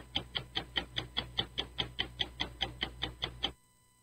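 Rapid ticking sound effect, about five even ticks a second over a low hum, played out through a live sound card's effect pads. It cuts off suddenly about three and a half seconds in.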